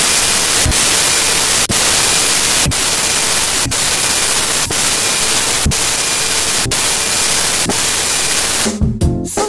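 Loud, even hiss of static noise from a corrupted TV broadcast signal, with brief dropouts about once a second. It cuts off near the end as the programme's music returns.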